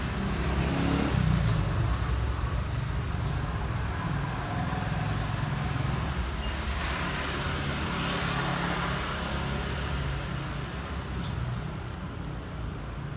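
Steady low background rumble under an even hiss, swelling a little about halfway through.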